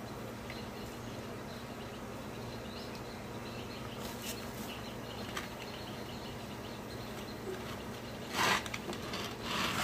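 A hand mixing sliced potatoes and gram flour in an aluminium pan, heard as two short rustling scrapes near the end. Before that there is only a faint steady hum.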